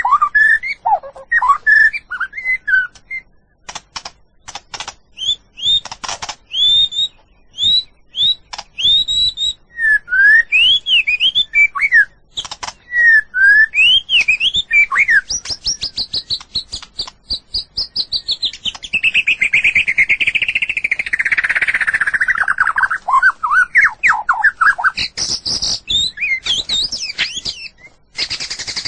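White-rumped shama singing a long, varied song: clear whistled notes that rise and fall, sharp clicks between them, and in the middle a fast run of notes that slides down in pitch before the whistles return.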